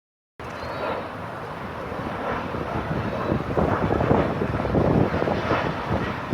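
Boeing 737 jet engines heard as the airliner passes: a steady rushing noise that sets in abruptly about half a second in and builds somewhat toward the middle, with wind buffeting the microphone.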